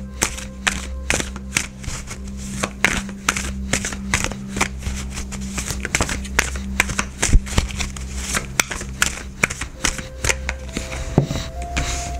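A deck of tarot cards shuffled by hand: a dense, irregular run of quick card snaps and riffles.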